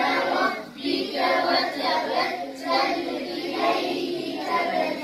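A group of children's and adults' voices reciting the Quran together in unison, a chanted, drawn-out recitation repeated after the teacher.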